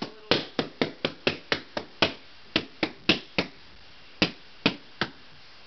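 Party balloons being burst with pins one after another: about sixteen sharp pops, coming about four a second in the first two seconds and then more spaced out.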